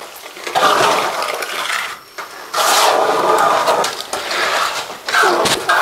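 Steel plastering trowel scraping wet cement mortar across a concrete-block wall in several long strokes.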